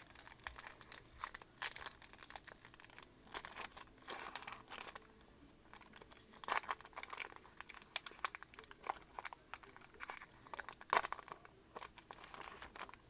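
Yu-Gi-Oh booster pack wrapper being torn open and crinkled by hand: an irregular run of crackles and rustles.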